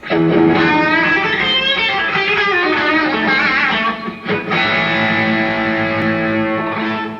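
Electric guitar playing a lead phrase of bent, wavering notes, then a held chord that rings on and starts to fade near the end.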